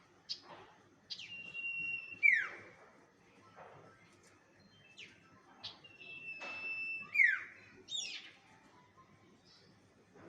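Bird lure call (suara pikat): a phrase of quick falling whistles, a held high note and a loud sharp downward sweep. The phrase comes twice, about five seconds apart.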